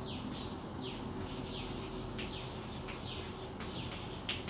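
Birds chirping: a steady run of short, downward-sweeping chirps, several a second, with a few faint taps and scrapes of chalk writing on a blackboard.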